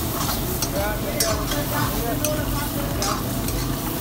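A long metal ladle stirring and scraping chicken in a bubbling, milky handi gravy in a steel wok over a gas flame. The gravy sizzles steadily under irregular clinks of the ladle against the pan.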